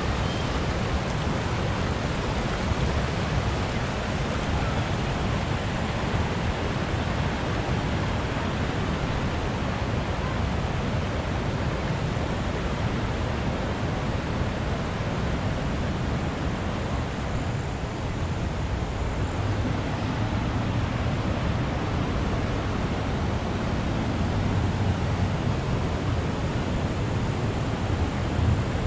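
Steady, unbroken rush of water, as from a waterfall or river rapids.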